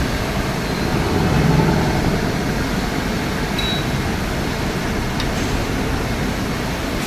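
Steady mechanical rumble of industrial machinery running, such as CNC machine-shop noise, with a few faint, brief high tones.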